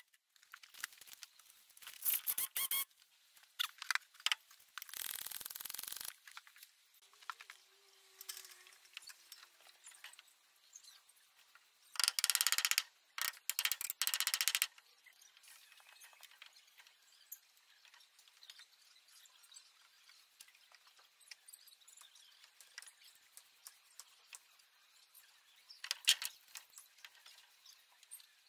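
Cordless drill running in several short bursts at a steel post anchor on a concrete footing, with faint knocks and rustling between the bursts.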